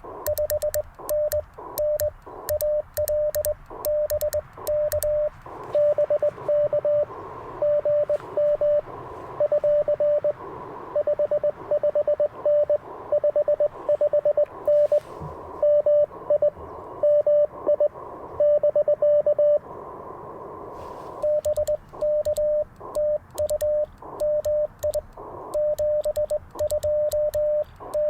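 Morse code from an Icom IC-705 transceiver: a steady tone of about 600 Hz keyed on and off in dots and dashes. In the first five seconds and the last seven, an N3ZN ZN-SS sideswiper (cootie) key is being worked, its contacts clicking sharply with each element. In between, the clicking stops and the tones come with a band of receiver hiss: a station answering over the air.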